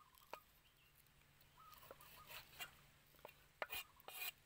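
Large kitchen knife cutting raw pork on a round wooden chopping block: faint knocks and taps of the blade against the wood, a few spread out, then several in quick succession near the end.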